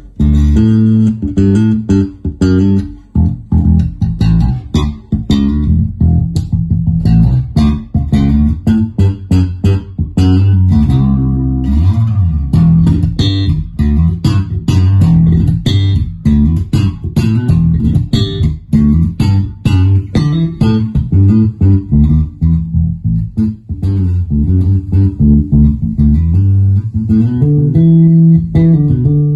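Electric bass guitar played through an Ampeg BA115HP combo amplifier with a single 15-inch speaker: a continuous run of plucked bass notes and riffs, deep and loud.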